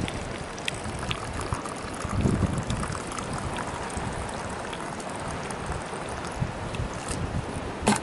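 Drink pouring in a thin stream from a stainless steel Kalipso Artigas thermos into its metal cup, over wind rumbling on the microphone. A sharp knock near the end.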